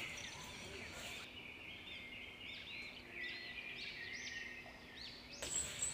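Chicks peeping softly: many short, high chirps overlapping for several seconds.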